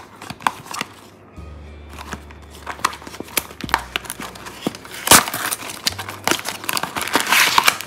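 Cardboard box being torn open by hand and the plastic packet inside crinkling: a run of sharp crackles and rustles, busier and louder in the second half.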